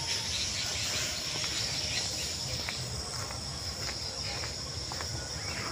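Steady chorus of insects in woodland, a continuous high-pitched drone, over a low steady rumble.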